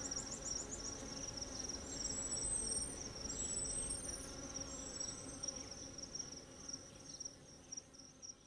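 Steady high-pitched insect trilling with a fast pulse. Near the start comes a quick run of short high chirps, and three thin rising whistles follow between about two and five seconds in. The whole sound fades toward the end.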